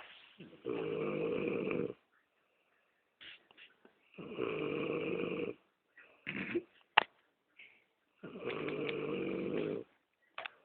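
A man snoring: three long snores of about a second and a half each, roughly four seconds apart, with a few small clicks in the quiet gaps between.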